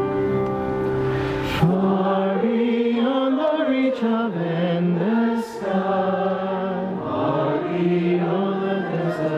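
Choir singing a hymn. A held chord changes about one and a half seconds in to a moving melodic line.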